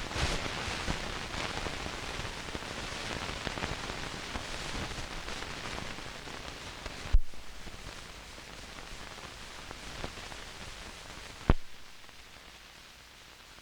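Crackle and hiss from the optical soundtrack of an old kinescope film, with many small clicks and two sharp pops, about seven and about eleven seconds in. The crackle thins out after the first pop.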